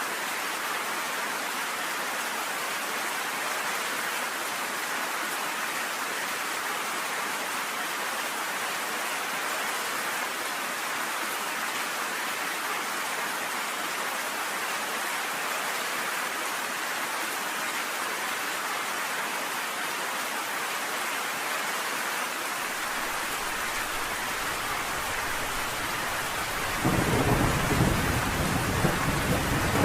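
Steady rain pelting down on a cabin porch in an even hiss. Near the end a low rumble of thunder rolls in and grows louder.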